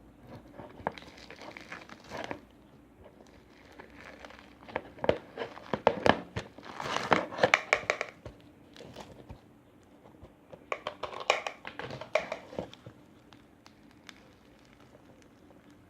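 Foam-bead slime (floam) being squeezed and kneaded by hand, crackling and popping with many small clicks. The crackling comes in two louder spells, a longer one in the middle and a shorter one later.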